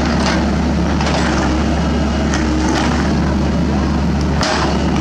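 Sany SY75 mini excavator's diesel engine running steadily under hydraulic load as the bucket works broken concrete, with a few short knocks and scrapes of concrete and debris.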